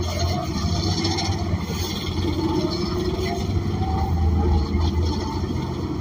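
2016 ENC Axess bus with a Cummins Westport ISL G natural-gas inline-six and an Allison B400R automatic transmission, heard from the passenger cabin while the bus drives. A deep steady engine hum with a whine whose pitch rises and falls as the bus pulls along.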